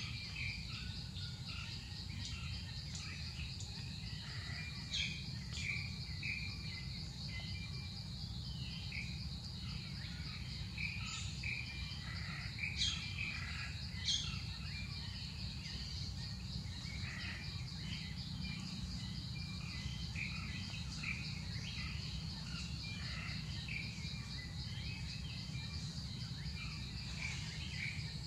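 Forest ambience: insects trilling steadily, with scattered short bird chirps over it and a steady low rumble underneath. A few sharp ticks sound near the middle.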